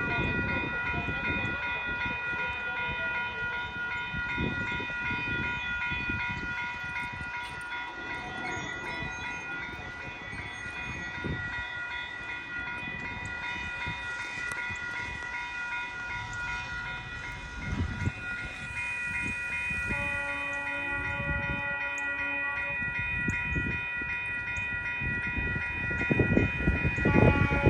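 GO Transit passenger train rolling past over a level crossing, its wheels rumbling and clattering on the rails, while the crossing bells ring without a break. The train noise grows louder near the end.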